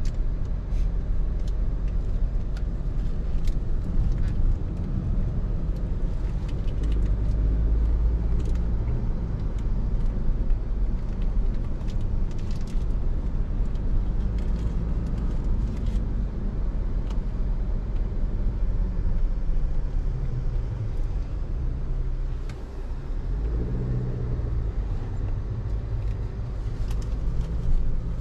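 Inside the cab of a 2023 Chevrolet Colorado ZR2 pickup driving slowly: a steady low rumble of its turbocharged four-cylinder engine and tyres. The rumble dips briefly past the middle, and the engine note comes up again just after.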